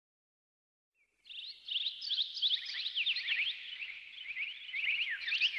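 A flock of birds chirping together, a dense chorus of short, quick chirps that starts about a second in.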